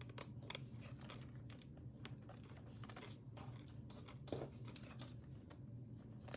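Faint, scattered clicks and crinkles of football trading cards and foil pack wrappers being handled, with one slightly louder knock about four seconds in, over a faint steady low hum.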